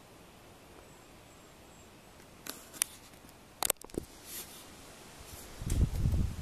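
Faint outdoor background, then a few sharp, irregular clicks a little under halfway through. Near the end come low rumbling gusts of wind buffeting the microphone.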